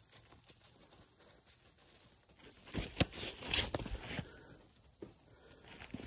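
Scuffling footsteps and rustling on the ground, a burst of a second or two with a few sharp clicks, starting about two and a half seconds in after a near-quiet start.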